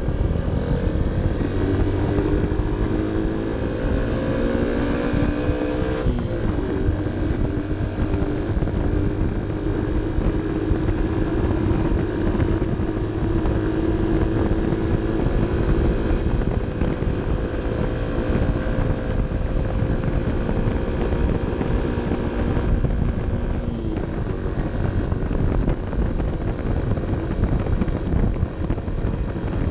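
Honda CB 125 F's single-cylinder four-stroke engine pulling uphill, revs climbing for the first few seconds, then dropping with an upshift about six seconds in. It then runs steadily before easing off about three-quarters of the way through. Wind rumbles on the bike-mounted microphone.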